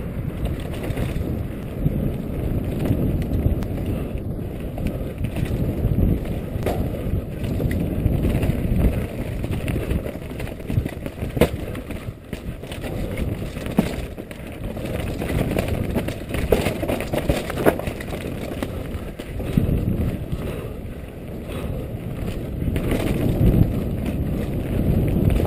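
Wind buffeting the bike-mounted camera's microphone, mixed with the rattle and scattered knocks of a bike riding fast over a rough, rocky dirt trail.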